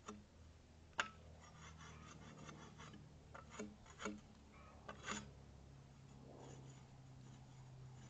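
Bark being scraped off a log with a long-handled peeling tool, faint: several scraping strokes with sharp knocks as the blade strikes the wood, the sharpest about a second in.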